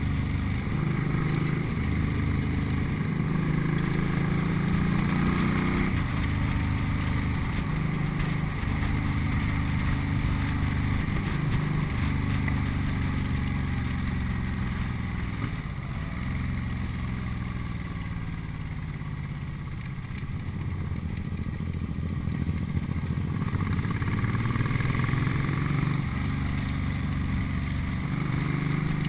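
Cruiser motorcycle engine running at road speed, heard from on the bike over a steady rush of wind. The engine pitch rises and falls with the throttle, easing off through the middle and picking up again near the end.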